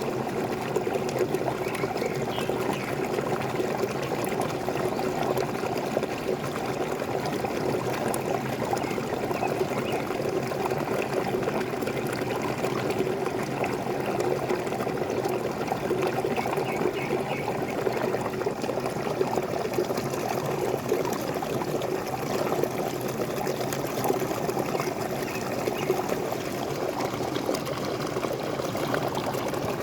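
Small waterfall: water pouring and splashing steadily, a dense, even rush centred low in pitch.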